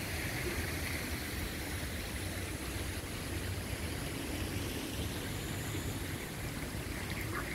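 Steady outdoor rushing noise with an uneven low rumble underneath, like wind and water ambience by a pond. No single event stands out.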